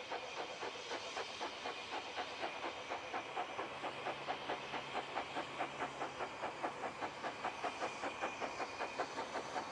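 Narrow-gauge steam locomotive working a train, its exhaust chuffing evenly at about four beats a second over a steady hiss of steam.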